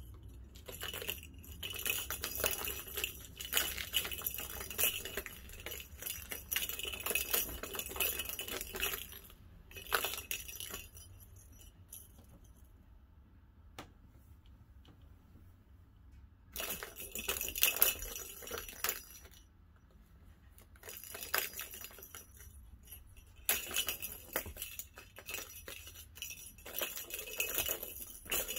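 A plastic ball rolling and rattling around the circular tracks of a plastic tower-of-tracks cat toy as a kitten bats it. The rattling comes in long stretches, with quiet pauses from about eleven to sixteen seconds in and again around twenty seconds.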